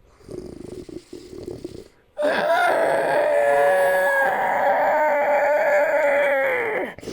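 Creature sound effect: a low, rough, broken sound, then about two seconds in a loud, long call held at one steady pitch for about five seconds. The call drops in pitch just before it stops.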